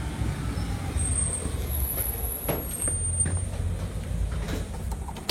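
Low, steady rumble of a motor vehicle running nearby, with a few light clicks and knocks over it.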